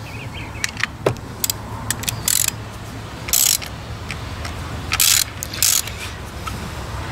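Socket ratchet wrench tightening a nylock nut onto a trolling motor's prop shaft: scattered clicks and four short bursts of ratchet clicking, over a steady low hum.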